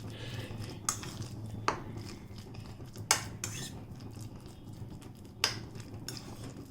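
Metal spoon clinking against a bowl while a mixture is stirred: four sharp separate clinks, a second or two apart.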